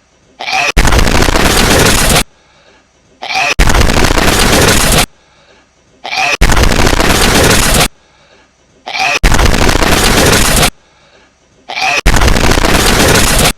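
A looped clip of a hedgehog sneezing, repeated about every three seconds and boosted into a very loud, harsh blast that lasts about a second and a half each time. A small faint sound comes just before each blast. Five repeats are heard.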